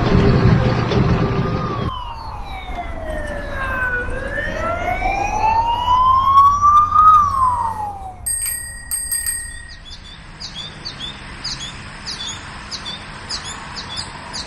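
A sequence of modern everyday sound effects. About two seconds of traffic-like rumble come first, then a siren wails down and back up. Near the end come brief high electronic tones and a run of quick, evenly spaced high chirps.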